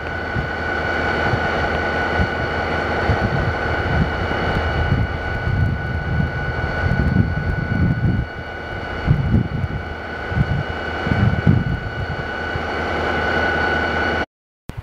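Vermont Railway diesel-electric locomotive running close by: a steady low engine rumble that swells and eases, with a constant high whine over it. The sound cuts off abruptly near the end.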